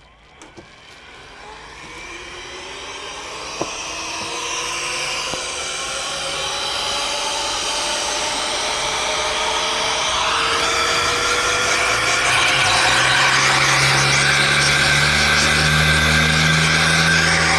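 Small electric air blower used to blow dust out of a computer, its motor spinning up with a slowly rising whine over about ten seconds and then running steadily.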